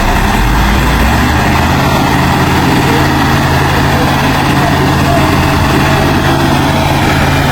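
Heavy diesel engine of earth-moving machinery running steadily, its note shifting about a second in.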